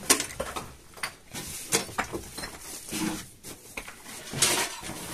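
Metal cooking pots and household containers being handled, a series of sharp knocks and clinks, with a short scraping sound about four and a half seconds in.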